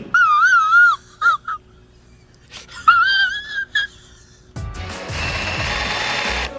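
A dog whining: two drawn-out, wavering high whines with short yips between, followed from about four and a half seconds in by a steady rushing hiss.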